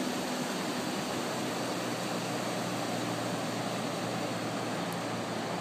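Steady, even rush of ocean surf breaking on the beach.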